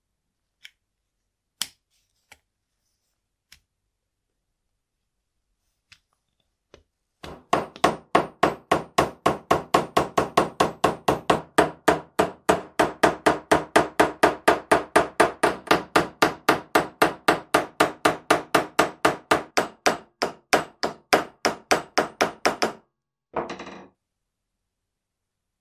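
A hand tool working in quick, even strokes, about four a second, for some fifteen seconds, after a few scattered clicks; one last short stroke near the end.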